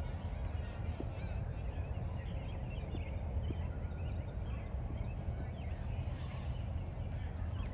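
Many short bird chirps scattered throughout, over a steady low rumble.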